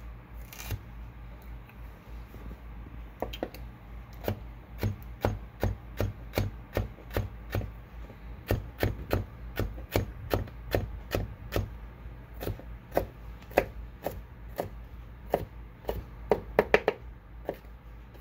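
Folding knife (Mikihisa double-bevel moroha) dicing jalapeño strips on a cutting board: steady taps of the blade through the pepper onto the board, about two a second, with a quick run of taps near the end.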